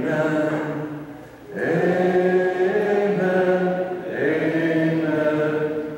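Church congregation singing a hymn: long held notes in phrases, with a brief pause for breath between them.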